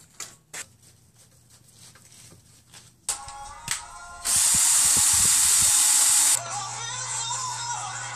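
Light clinks of hand tools, then a cordless drill runs steadily for about two seconds before stopping abruptly. Background music follows.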